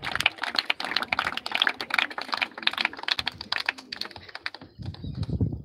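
Scattered applause from a small crowd: many hands clapping unevenly, dying away about four and a half seconds in, with a low rumble near the end.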